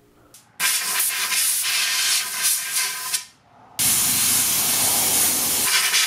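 Compressed air from an air-hose blow gun hissing in two long blasts, with a short stop about three seconds in. The second blast has a deeper rush. The air is blowing oil out of the fork cartridge and tubes to dry them.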